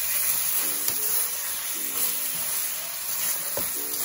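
Barbecue-sauced chicken sizzling in a hot frying pan, the sauce cooking down onto the meat, with soft background music playing short repeated chords.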